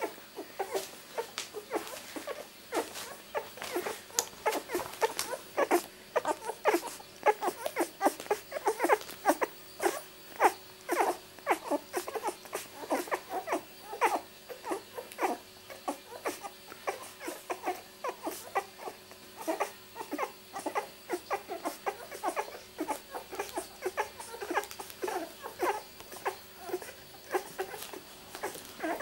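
A litter of two-week-old miniature labradoodle puppies nursing: a constant run of quick wet suckling and smacking clicks, several a second, mixed with small squeaks and whimpers.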